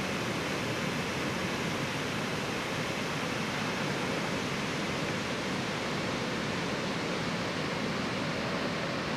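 Floodwater rushing steadily through a desert wash, a constant, even rush of water.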